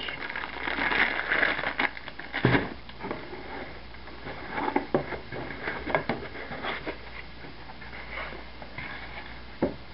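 Plastic packaging rustling and crinkling as parts are unpacked by hand, with scattered light clicks and knocks; a sharper knock comes about two and a half seconds in.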